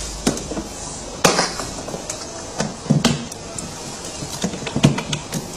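Hard plastic parts of a kids' ride-on truck clicking and knocking as the rear motor gearbox is worked onto the metal rear axle, with irregular small knocks and three sharper ones.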